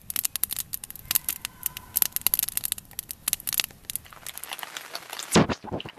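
Wood campfire crackling and popping in a steel fire ring, with many quick irregular snaps. A brief low thump comes about five seconds in.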